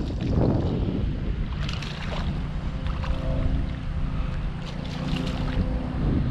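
Wind buffeting the microphone, with sharp splashing from a hooked bass thrashing at the surface and then in the shallows as it is drawn to the bank, several times.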